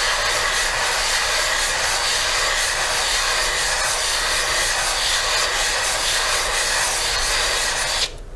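Aluminium Brembo brake caliper half being hand-sanded in figure-eight loops on wet 600-grit wet/dry paper over glass: a steady scraping that stops suddenly near the end. The mating face is being lapped flat to take down proud spots around the bolt holes, so the fluid transfer holes will seal against the O-ring.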